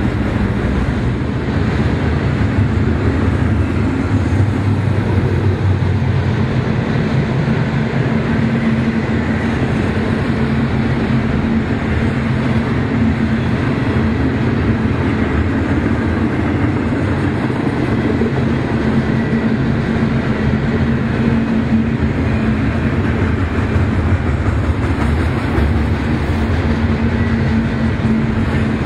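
A train rolling past: a steady, continuous rumble with a steady low drone running under it.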